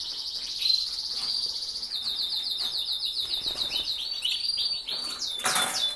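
Canaries singing: fast rolling trills of rapidly repeated high notes, one phrase running into the next, with a brief rustle near the end.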